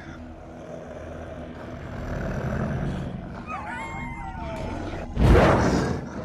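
Wolf pack growling low and building, with a few whining howls sliding up and down, then a sudden loud snarl about five seconds in.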